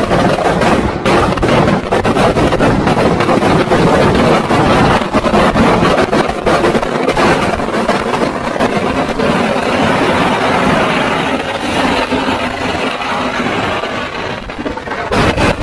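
Firecrackers packed inside a burning Ravan effigy going off in a loud, dense, continuous crackle of rapid bangs, easing a little near the end.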